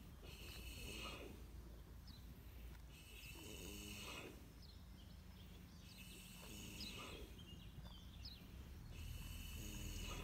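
A 20-year-old horse snoring in a deep, relaxed doze. Slow breaths come about every three seconds, each a low pitched snore with a hiss of air.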